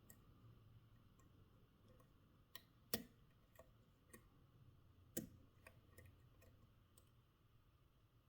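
Faint, irregular clicks of a lock pick and tension tool working the spool pins inside a Security Edge padlock. About ten clicks, the loudest about three seconds in.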